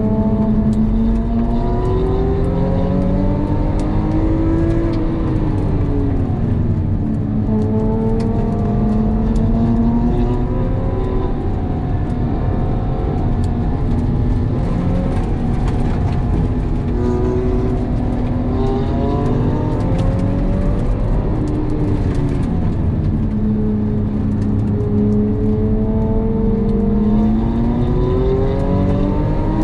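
Porsche 911 (997) flat-six engine heard from inside the cabin at track pace, its note holding high for long stretches, climbing under acceleration and dropping as the car slows for corners, over steady road rumble.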